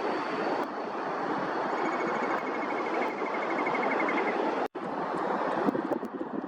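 Eurasian whimbrel giving a long, rapid trill of even whistled notes over a steady rushing background of wind and distant traffic. The sound cuts out for an instant about two-thirds of the way through, and a few sharp ticks follow near the end.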